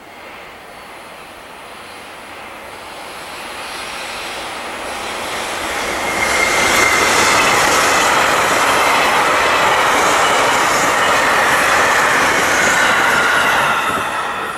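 An electric train passing at speed. Its rail noise builds over about six seconds and stays loud for most of the rest, with a whine that drops in pitch as it goes by. It fades near the end.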